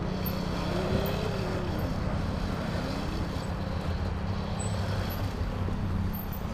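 Dirt bike engine running at steady revs, with a constant low hum.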